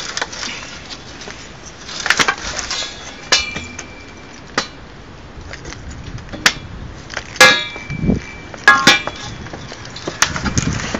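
Pallet boards being pried apart with a slotted steel bar: a series of separate sharp wood cracks and knocks, some with a short creak or squeal as the nailed boards give, and metal clinks from the bar.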